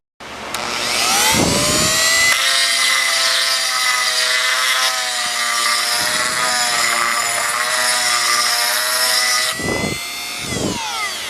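Electric power tool motor spinning up to speed, running for several seconds with its pitch wavering slightly as it works under load, then winding down near the end.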